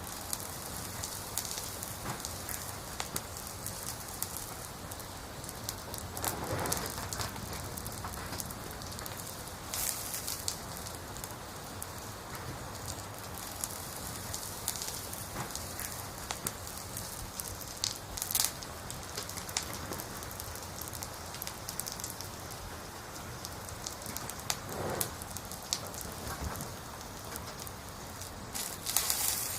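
Burning firewood: a steady hiss with many small crackles and a few louder pops scattered through.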